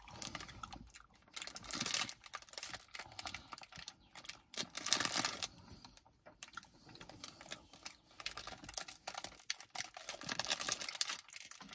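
Close-up mouth sounds of a man eating an ice cream cone. Irregular small wet clicks and smacks of lips and tongue come in clusters, loudest about five seconds in.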